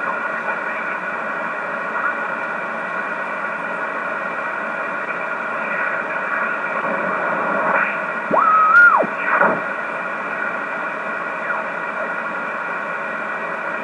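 Receiver audio from a Yaesu HF transceiver being tuned across the 10-metre band on upper sideband: steady hiss with faint whistles. About eight seconds in, a louder whistle sweeps up, holds for under a second and drops away, then a shorter one follows.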